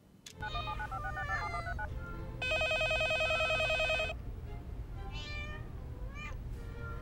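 Several cats meowing over a low steady hum. About two and a half seconds in, a landline telephone's electronic ringer sounds once, a fast warbling ring of about a second and a half and the loudest thing here; then more meowing.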